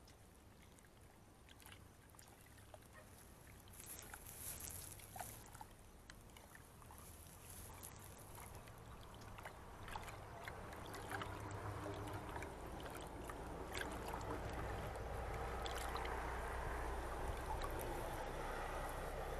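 A hand squelching and sloshing flour in water in a steel bowl, working it into a smooth halwa batter. It is faint, with small wet clicks, and grows louder in the second half.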